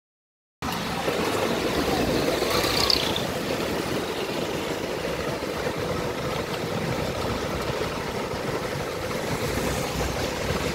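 Street traffic driving past close by on a wet road: engine noise and tyre hiss from passing cars. It cuts in suddenly about half a second in and then holds steady.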